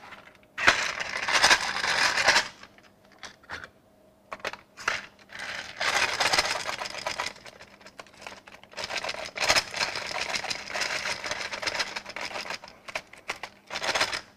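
Loose .22 Long Rifle cartridges rattling inside the clear plastic hopper of an Ultimate Clip Loader as it is shaken to line the rounds up in the feeder and drop them into the magazine. The rapid clattering comes in three spells, the last and longest lasting about four seconds, with scattered single clicks between them and near the end.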